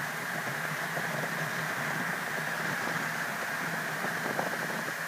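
Honda CBR1100XX's inline-four engine running steadily at cruising speed in sixth gear, mixed with a constant rush of wind and road noise.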